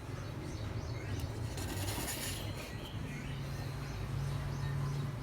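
Faint short chirps from a parrot over a steady low hum, with a brief rush of hiss about two seconds in.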